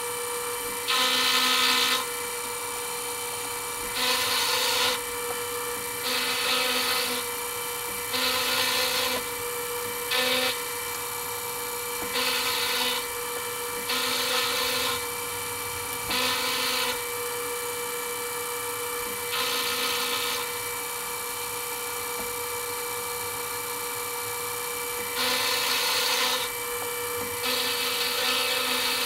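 Milling machine running with a steady hum while cutting a steel part, with repeated rasping bursts about a second long every two to three seconds and a pause of several seconds between them.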